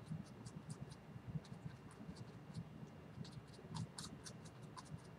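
Small paintbrush working oil paint on a canvas: a run of faint, short scratchy taps and strokes, busier about three to four seconds in.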